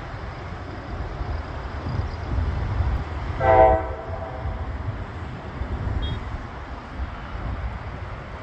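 Low, steady rumble of a business jet climbing away into the distance. About three and a half seconds in, a short horn blast of about half a second cuts through, the loudest sound.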